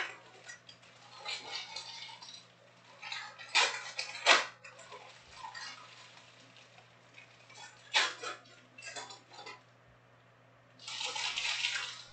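Foil-wrapped trading card packs rustling and clacking as they are handled and stacked, in several short bursts, loudest about four seconds in.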